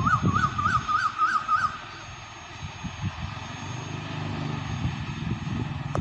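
Train slowly pulling out on the rails, a low rumble with irregular knocks. Over it, in the first couple of seconds, a bird gives a repeated rising-and-falling call, about three a second.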